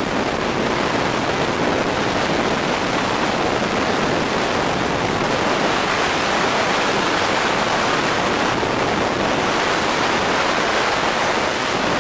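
Steady, loud rush of freefall wind over a camera's microphone as skydivers fall.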